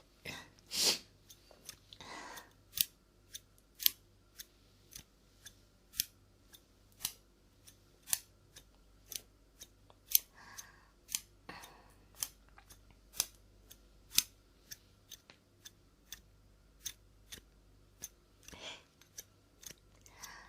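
Scissors snipping, a steady run of sharp snips about twice a second, with a few softer rustles in between.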